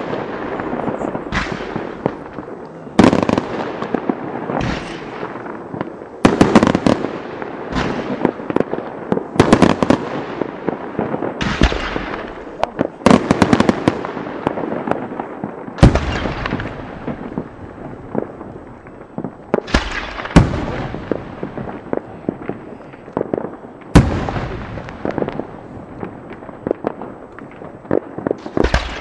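Aerial fireworks bursting one after another: a sharp bang every one to two seconds, each dying away in a spray of small pops and echo, the bangs thinning out in the second half.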